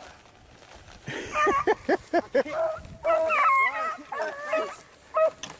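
Beagles barking and yipping. After about a second of quiet there is a quick run of short, pitched yelps, then longer drawn-out bays that overlap.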